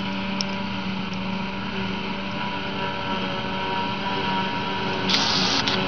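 John Deere 7800 self-propelled forage harvester running steadily as it picks up and chops grass, with the tractor hauling the trailer alongside it, a steady engine hum under a constant rushing noise. A brief hiss about five seconds in.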